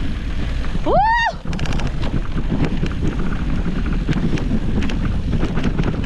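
Wind buffeting the microphone and a mountain bike rattling over a rough trail during a ride. About a second in comes a short, high, rising-then-falling whoop.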